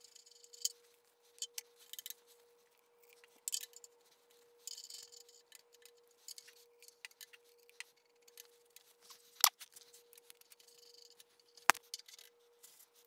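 Metal parts of a Bridgeport milling machine's knee crank being wiped with a cloth and fitted by hand: scattered light clicks and rubbing, with two sharp metal clinks, one about two-thirds through and one near the end. A faint steady tone runs underneath.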